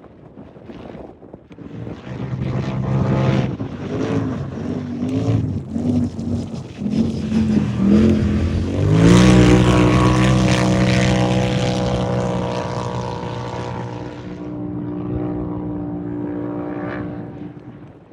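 A turbocharged race UTV's engine running hard. The revs climb and drop over the first several seconds, then it holds a steady high drone at full throttle from about halfway through. It is loudest just after the halfway point and fades away near the end.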